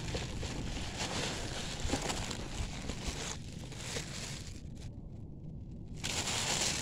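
Tissue paper rustling and crinkling as it is lifted and unfolded out of a shipping box, over a steady low wind rumble on the microphone. The rustling dies away for about a second roughly five seconds in, then picks up again.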